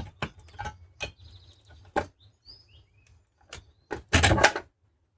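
Handling clicks and knocks from a chainsaw with a clip-on bar sharpener fitted, then a louder noisy burst of about half a second just after four seconds in. A bird chirps once briefly.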